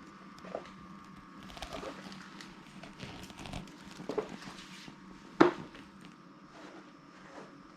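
Scattered light knocks and rustles of handling and movement in a small room, with one sharp click about five and a half seconds in, over a faint steady hum.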